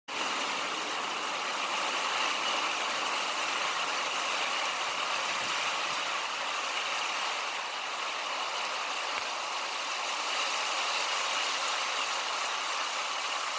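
Steady, even rushing outdoor noise with no distinct events, cutting in and out abruptly.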